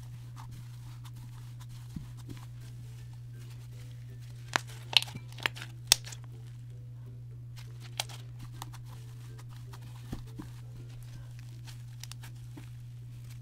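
Slime kneaded and squeezed with plastic fake snow worked into it, making a crispy slime: scattered crisp crackles and pops, the loudest cluster about four to six seconds in. A steady low hum runs underneath.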